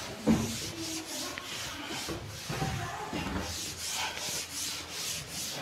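Cloth duster wiping chalk off a chalkboard in quick back-and-forth strokes: a soft, repeated rubbing hiss, several strokes a second.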